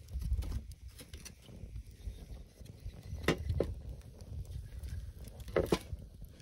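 Split firewood being laid onto a small fire in a steel fire pit: a few sharp wooden knocks, two close together about three seconds in and two more near the end, over a steady low rumble.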